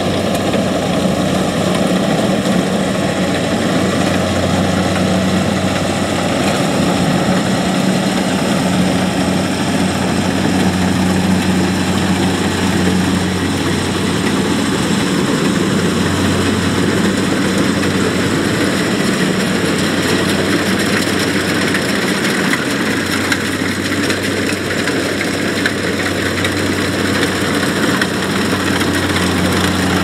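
Kubota DC-70 rice combine harvester working a rice field: its engine runs at a steady hum, with a dense, even mechanical rush from the machine cutting and threshing over it.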